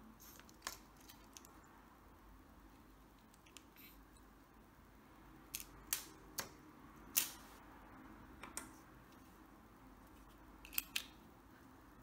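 Faint, sharp plastic clicks as buttons are pressed on a handheld Pandora Multibrand 605 car-alarm tester: about eight single clicks at irregular intervals, most of them in the middle and two close together near the end.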